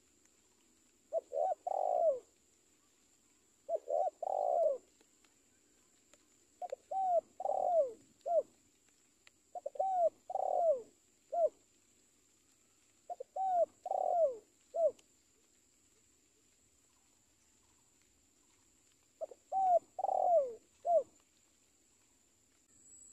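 Spotted dove cooing: six phrases of three or four short notes each, repeated every few seconds, with a longer pause before the last phrase.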